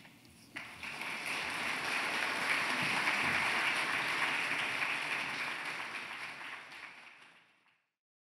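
Audience applauding: clapping starts suddenly about half a second in, holds steady, then fades out near the end.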